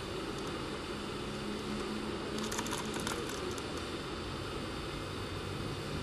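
Steady outdoor background hum, like distant engines, with a short burst of rapid high clicks about two and a half seconds in.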